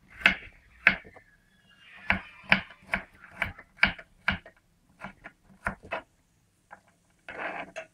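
Kitchen knife slicing garlic cloves and tapping on a wooden cutting board: a run of short taps, about two a second, with a brief scrape near the end.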